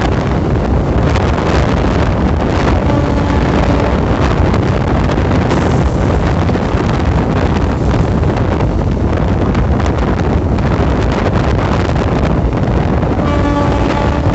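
Passenger train running at speed, heard from an open coach door: a steady loud rumble of wheels on track with wind buffeting the microphone. A short pitched horn-like tone sounds twice, about three seconds in and again near the end.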